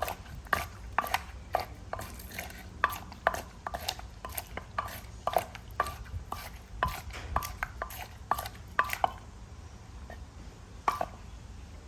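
Pestle and spoon knocking against a mortar as a pounded salad is pounded and tossed to mix in its seasoning: sharp knocks, about two a second, with a brief pause near the end.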